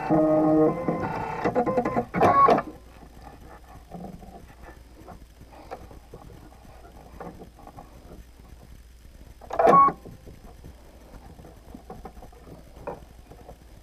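Electronic sewing machine motor running briefly with a whine of several steady tones, then soft clicks of handling at the needle, and a second short whir of the machine, such as a single stitch to bring up the bobbin thread, near ten seconds in.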